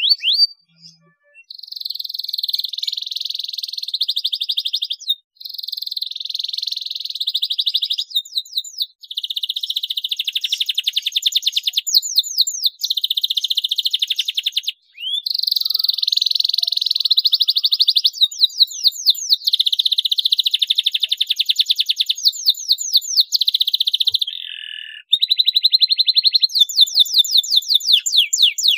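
Domestic canary singing in full song: long trilling phrases of rapid repeated notes and quick falling whistles, broken by short pauses every few seconds.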